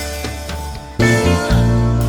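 Background music with plucked guitar over a bass line.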